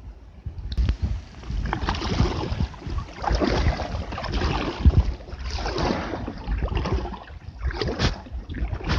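Kayak paddle strokes, the blades dipping and splashing in the water about once a second, over a low rumble from the microphone moving inside a life jacket.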